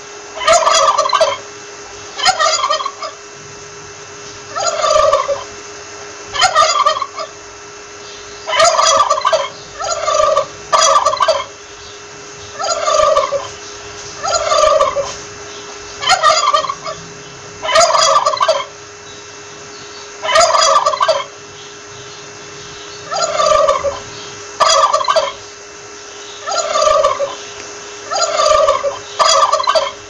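Male turkey (tom) gobbling again and again, a short rattling gobble every second or two.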